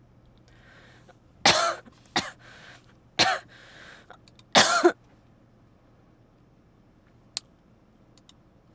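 A person with a cold coughing: a fit of four loud coughs over about three seconds, the last a double one, with breathy noise between them. A single sharp click follows a couple of seconds later.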